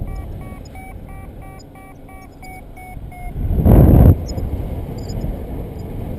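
Paragliding variometer beeping rapidly, about three short beeps a second, the tone it gives while the glider is climbing in lift. The beeps stop about three seconds in, and a loud gust of wind hits the microphone for under a second, over steady wind noise.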